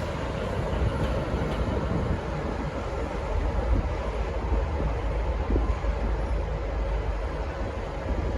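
V/Line N class diesel-electric locomotive running with a steady low rumble.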